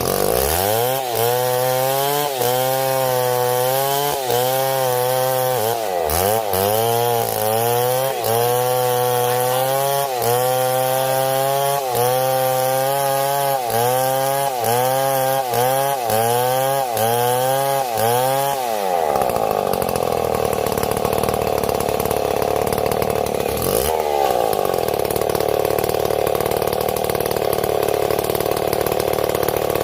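STIHL MS 070 two-stroke chainsaw cutting into a tree at high revs. Its pitch dips and recovers every second or so as the chain loads up in the wood. About two-thirds of the way through the pitch drops, and the saw settles into a rougher, steadier drone.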